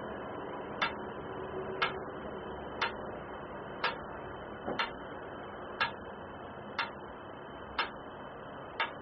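Metronome ticking steadily about once a second, one click per heartbeat, pacing the breathing, over a steady faint hiss.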